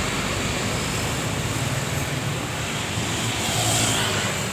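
Road traffic noise: a passing vehicle's engine rumble and tyre noise, with a brief hiss about three and a half seconds in.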